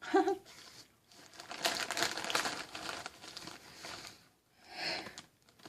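Crinkling of a plastic Flamin' Hot Cheetos snack bag as a hand rummages in it, in a dense crackly stretch through the middle and a shorter burst near the end.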